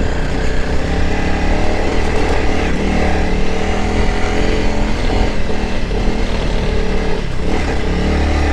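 Dual-sport motorcycle engine running while riding a trail, its pitch rising and falling with the throttle over a steady rushing noise.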